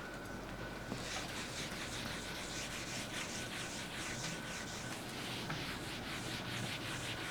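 Board eraser wiping a board: quick, irregular rubbing strokes that start about a second in and keep going.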